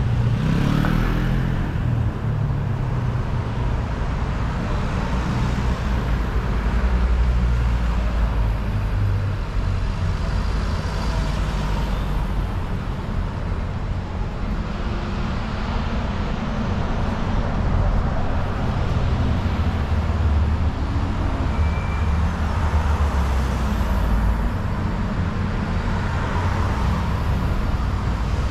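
Road traffic: cars driving past on a city street, a steady low rumble that swells as vehicles go by.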